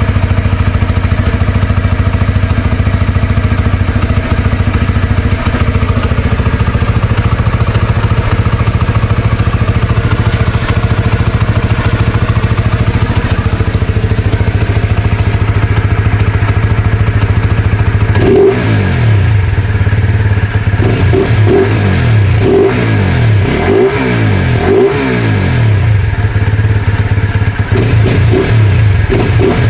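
Flash150X motorcycle engine with an open throttle body idling steadily, then revved in a series of quick throttle blips from a little past halfway, its pitch rising and falling with each blip.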